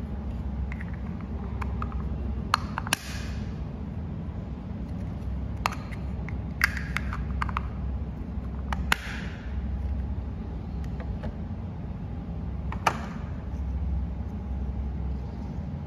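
Small hard plastic toy pieces being handled: a miniature ice cream tub and its lid clicking and tapping together as the lid is fitted on, about half a dozen sharp clicks, some with a short rustle after them. A steady low hum runs underneath.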